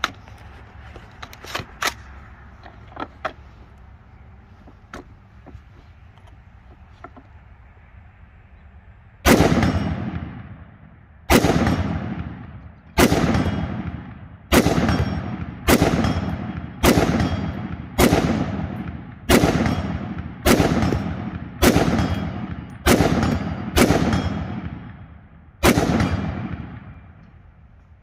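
Ruger SFAR .308 semi-automatic rifle fired in slow, steady semi-auto, thirteen loud shots about a second apart, each ringing out in a short echo. The shots begin about a third of the way in.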